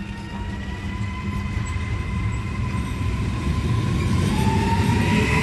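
Two coupled ETR 421 double-deck electric multiple units running on the track, a low rumble growing steadily louder with a thin high whine over it and a second whine sliding in about four seconds in.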